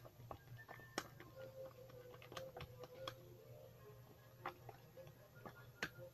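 Faint, irregular clicks and taps of slime being stirred in a bowl as liquid detergent is worked in, over a faint steady hum.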